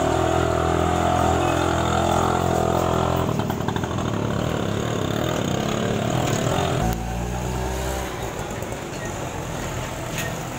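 Street traffic with a small vehicle engine running close by, steady for the first three seconds, then giving way to mixed traffic noise; another engine is heard low and steady for about a second around seven seconds in.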